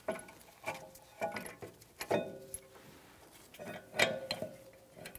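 Steel caliper bracket bolts clinking against the rear brake caliper bracket and knuckle as they are threaded in by hand. A handful of irregular sharp metal clinks, several with a short ring.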